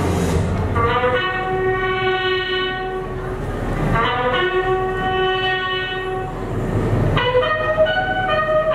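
Recorded train horn on a performance soundtrack, sounding three long multi-tone blasts about three seconds apart, after a low train rumble at the start.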